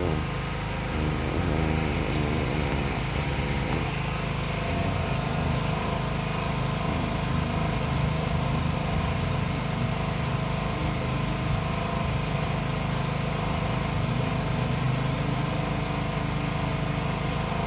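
An engine running steadily: a constant hum made of several low, unchanging tones.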